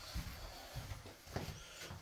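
Footsteps walking on an indoor floor, four soft thuds about half a second apart.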